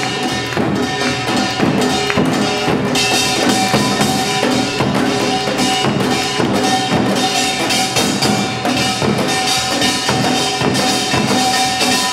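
Korean samulnori percussion ensemble playing a fast, dense rhythm: janggu hourglass drums and buk barrel drums struck continuously under the steady ringing of the kkwaenggwari and jing gongs.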